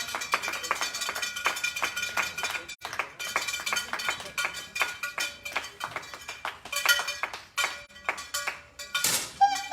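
Background music with a fast clicking beat and sustained tones, with a brief noisy burst near the end.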